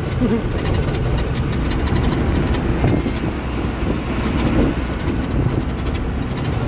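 Truck's diesel engine running and road noise, heard from inside the cab while driving: a steady low rumble.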